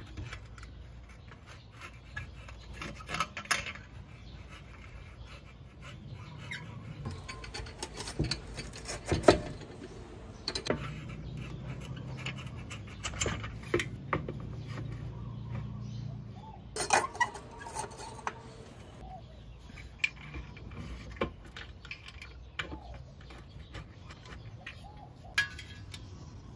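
Scattered metal clinks and knocks from handling a Vespa GTS stock exhaust muffler and hand tools against the scooter, with a few sharper knocks standing out, the loudest about nine seconds in.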